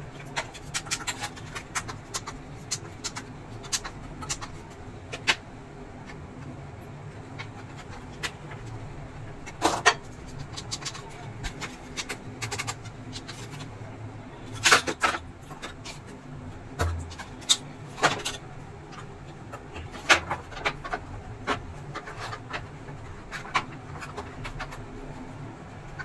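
Irregular sharp clicks and knocks of an induction cooker's plastic top panel being handled and set back onto its base, over a faint steady low hum.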